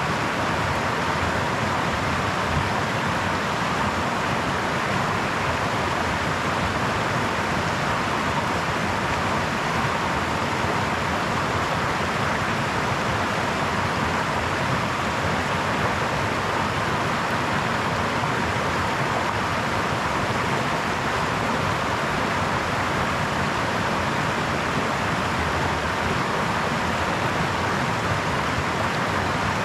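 Brook babbling: a steady, unbroken rush of flowing water.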